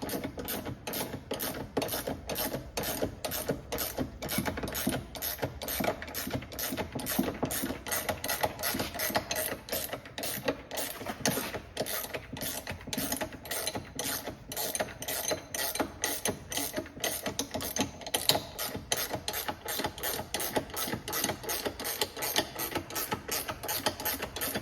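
Ratcheting box-end wrench clicking in a steady rhythm, about three clicks a second, as it turns the nut of a steering-rack bushing extraction tool, drawing the rubber bushing out of the steering rack.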